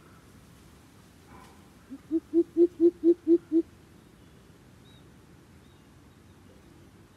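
Greater coucal giving its deep hooting call: a run of about eight low, evenly spaced hoots, about four a second, the first few growing louder.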